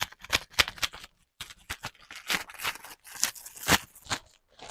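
A parcel's plastic packaging being opened by hand: an irregular run of sharp crackles and rustles.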